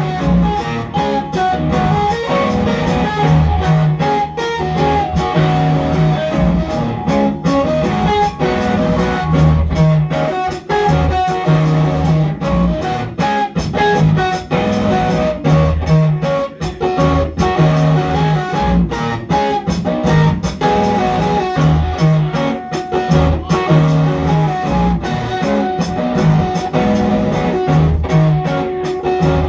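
Live electric guitar music: a busy stream of picked notes over a low bass note that pulses on and off.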